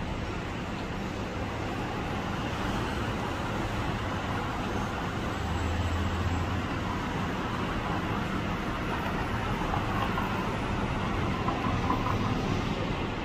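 Steady rushing noise of sandstorm wind, with a low rumble that swells briefly about six seconds in.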